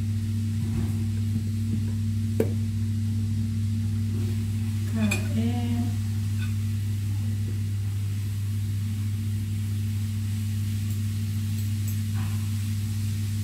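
Light clicks and scrapes of a serving spoon and forks against a plate and pot, over a steady low hum. A brief vocal sound about five seconds in.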